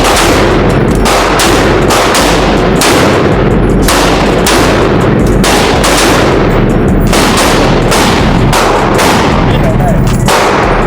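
Rapid, overlapping pistol gunshots, about twenty in all, that echo and keep the sound loud throughout. Among them are shots from a .50 AE handgun fired by a first-time shooter.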